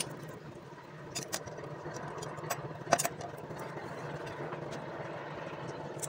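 A few sharp metallic clicks from a T8 T-handle wrench being fitted to and worked on the small bolts of a scooter's oil-strainer cover, over a steady low hum.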